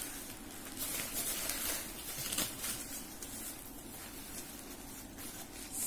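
Packaging wrapping rustling and crinkling in irregular crackles as it is pulled off an object by hand.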